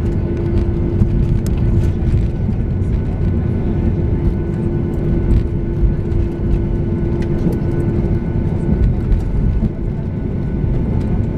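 Cabin sound of a Boeing 737-800 taxiing, heard from inside the cabin: a steady rumble of its CFM56-7B engines at low thrust and of the rolling wheels, with light rattles. A steady hum fades out about nine seconds in.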